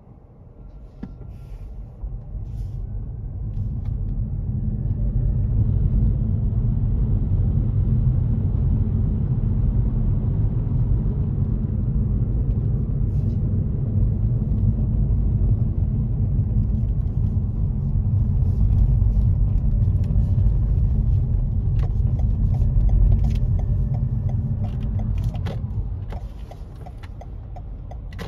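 Low road and engine rumble heard inside a car's cabin. It builds over the first few seconds as the car pulls away, holds steady while it drives, then drops off near the end as the car slows behind traffic.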